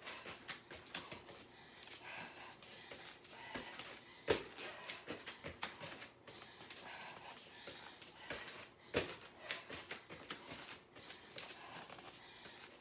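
Irregular thuds of feet landing on the floor from broad jumps and hops back, and of knees going down and coming up in surrender squats, with hard breathing in between; the loudest landings come about four and nine seconds in.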